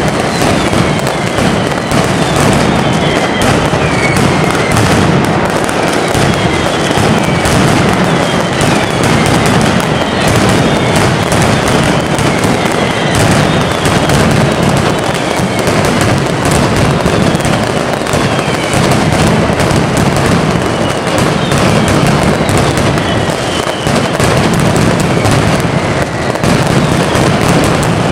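Mascletà: a dense, unbroken barrage of firecrackers strung on overhead cords, bursting in rapid succession. High whistles falling in pitch repeat over the crackle.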